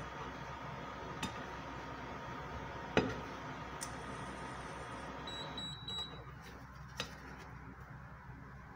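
A plastic spatula clicks and scrapes against a nonstick frying pan while a pancake is lifted out, over a steady low background. The sharpest click comes about three seconds in, and lighter ones come about one, four and seven seconds in. The background drops a little after about five and a half seconds.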